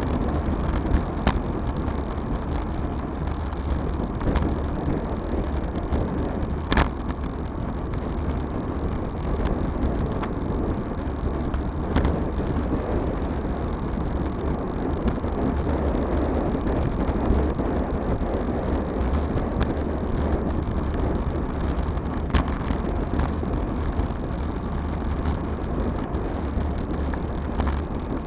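Wind buffeting an action camera's microphone on a moving road bike, with steady tyre and road noise and a few sharp clicks.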